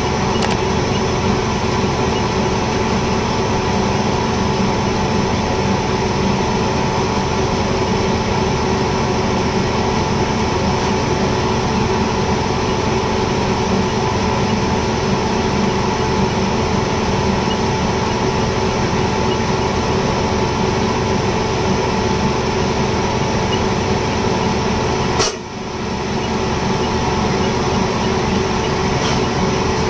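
Diesel injector test bench running steadily while Delphi common-rail injectors spray fuel into the bench's graduated measuring cylinders: a loud, even machine hum that dips briefly with a click about 25 seconds in.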